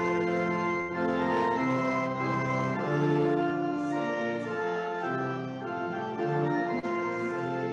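Organ playing a hymn tune in full, slow held chords that change every half second to a second.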